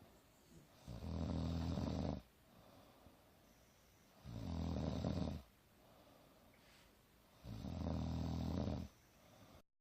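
Sleeper snoring steadily: three long, low snores, each about a second long and about three seconds apart, with quiet gaps between. The sound cuts out briefly near the end.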